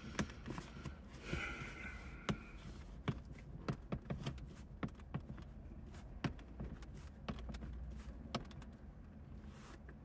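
Irregular small clicks and taps of hands twisting and pulling a car's stock leather shift knob and boot to unscrew the knob from the gear lever, with a brief high tone about a second and a half in.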